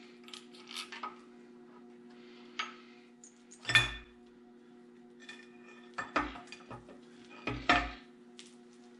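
Metal tools and engine parts clinking and clanking as an engine is worked on: a run of separate knocks, the heaviest about four seconds in and two more near the end, over a steady low hum.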